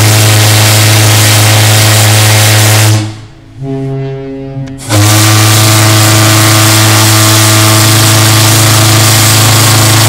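SS Shieldhall's steam fog horn blowing a long, loud blast, a low note with a hiss of steam, sounded in salute to a departing ship. It breaks off about three seconds in and sounds again about two seconds later as a second long blast.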